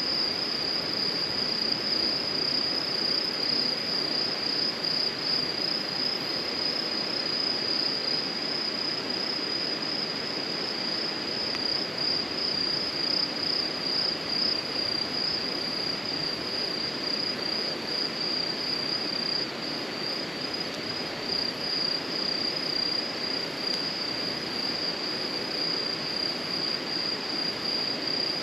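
Insects trilling in one steady, unbroken high-pitched tone, over an even rushing noise.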